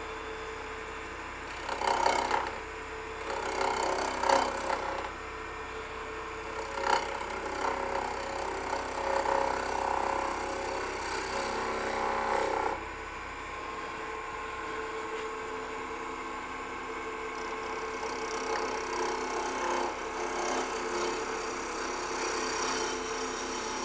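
A turning tool cutting a spinning green-wood limb on a wood lathe, over the lathe's steady running hum: several short hissing cuts, then a longer one that stops suddenly about halfway, followed by lighter, steadier cutting. These are the shaping cuts that round over the body of a small vase so it has no flat sides.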